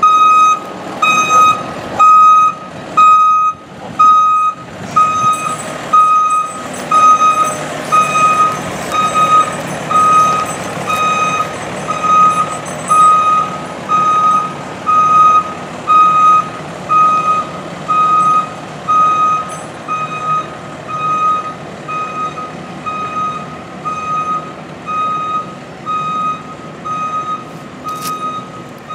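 Fire engine's reversing alarm beeping about once a second, one steady high tone, over the truck's engine running. The beeps are loudest in the first half and grow fainter toward the end.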